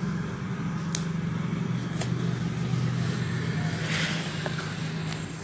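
Steady low hum of a running vehicle engine, with a few light clicks.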